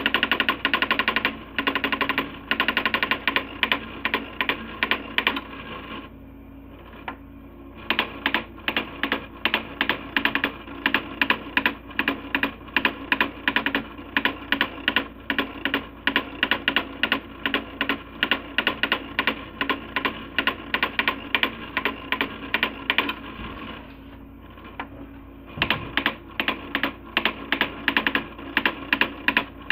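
Coleco Adam SmartWriter daisy wheel printer printing high-resolution graphics, its print hammer striking the daisy wheel in fast rattling runs. The strikes stop twice for about two seconds, a few seconds in and again late on, leaving a quieter steady sound before the rattling resumes.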